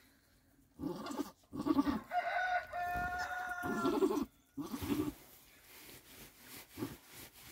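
Mother goat's short low grunts to her newborn kids, with a longer, higher drawn-out call in the middle, about two seconds in.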